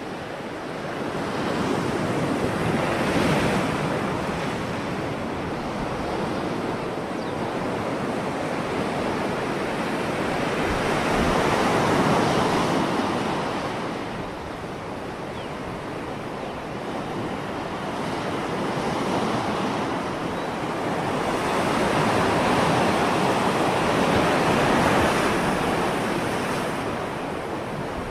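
Ocean surf: waves breaking and washing in as a continuous rush that swells and ebbs every several seconds.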